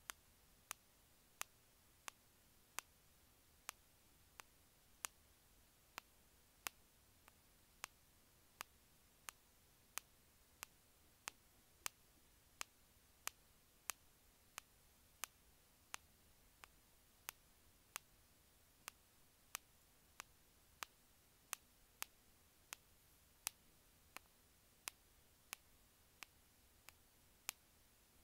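Sharp single clicks repeated at a steady pace, about three every two seconds, some a little fainter than others, over a faint hiss.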